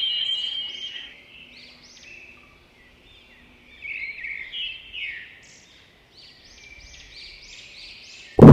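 Faint, high bird-like chirping, strongest in the first second, then coming back in short clusters. A loud noise cuts in suddenly at the very end.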